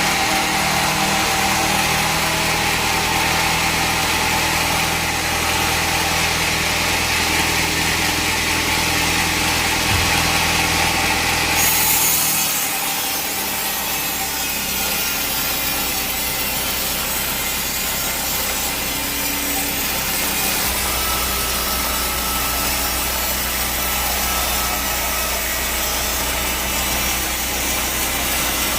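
Band sawmill running and cutting through a teak log, a continuous machine noise with a steady hum. About twelve seconds in the sound changes, the deep hum dropping away and the high hiss shifting.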